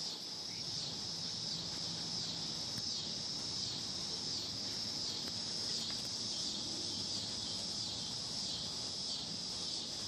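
Steady, high-pitched chorus of insects that swells slightly about once a second.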